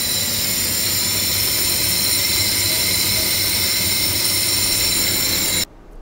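Laser cutting machine running as its head cuts through card: a steady whirring hiss with several high, steady whines over a low hum, cutting off abruptly near the end.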